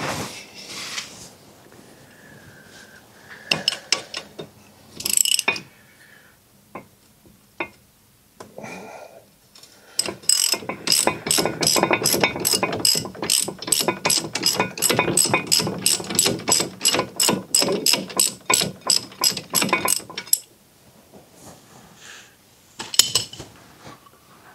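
Hand socket ratchet clicking in quick, even strokes, about four a second for some ten seconds, as an 18 mm brake caliper bracket bolt is backed out. A few scattered metal clinks and knocks come before it.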